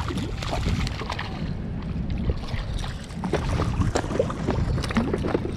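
Water splashing and sloshing as a hooked barracuda thrashes at the surface right beside a float tube, with many short sharp splashes over a steady low rumble of moving water.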